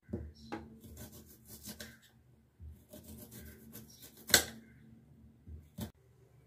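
Knife cutting a red onion on a cutting board: irregular taps and knocks of the blade on the board with some rubbing of the onion skin, the loudest a single sharp knock about two-thirds of the way through.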